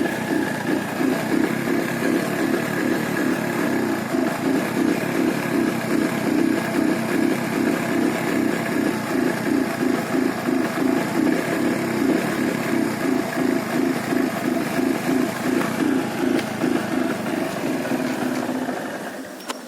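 Hero Honda Joy's small engine running steadily with an even pulsing beat, fading out near the end.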